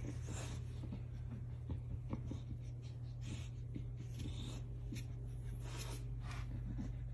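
An English bulldog and a French bulldog puppy sniffing and snuffling at each other in short, irregular noisy breaths, over a steady low hum.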